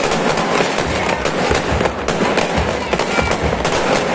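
Aerial fireworks going off in a dense barrage: bangs and crackles follow one another several times a second without a break.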